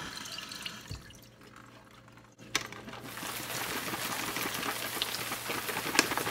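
Tap water running and spattering over blueberries as they are rinsed in their plastic clamshell, with small crackling clicks. It gets louder about three seconds in.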